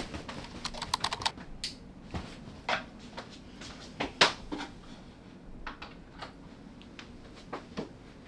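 Irregular light clicks and taps, with a quick run of them about a second in and a sharper single tap about four seconds in.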